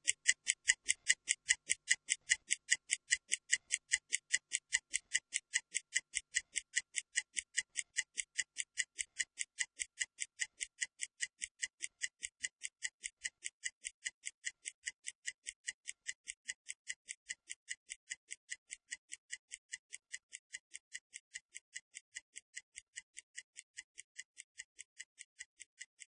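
Stopwatch ticking sound effect, an even run of sharp high ticks at about four a second that slowly fade, counting down a 30-second recovery timer.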